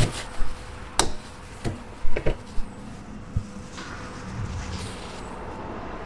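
About eight short, sharp clicks and knocks over the first three and a half seconds as a van's fuel filler cap is closed up after refuelling, then only a steady low background.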